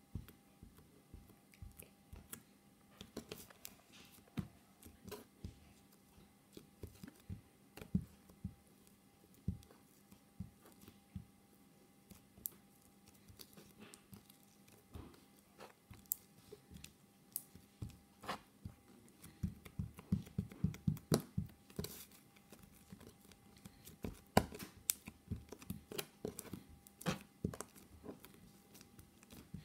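Silver slime being poked, pulled and stretched by fingers on a tabletop: faint sticky clicks and pops, with a quick run of them about two-thirds of the way through.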